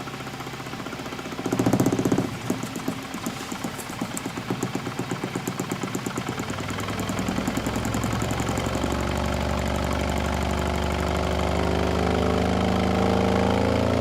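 Repaired Ground Zero subwoofer playing a low test signal: a fast, even pulsing, then a steady low hum that begins to rise in pitch near the end.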